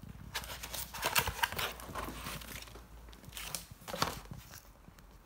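Cardboard box flaps being pulled open and folded back by hand, with a run of rustling, scraping cardboard noises in the first two seconds and another at about four seconds.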